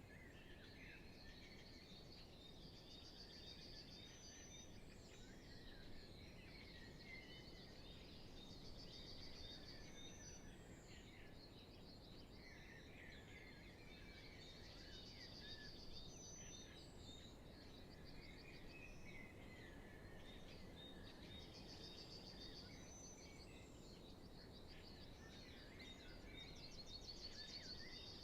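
Faint spring dawn chorus: many songbirds singing at once, with one bird repeating a short trill about every six seconds, over a low steady hiss.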